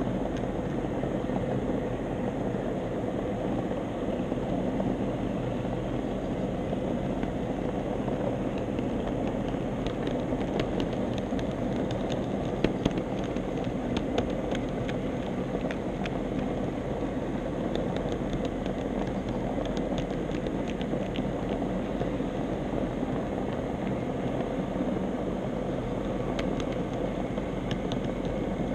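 HO-scale model trolley running along its track, heard from the camera riding on it: a steady whir and rumble of the motor and wheels. Scattered light clicks come in from about ten seconds in.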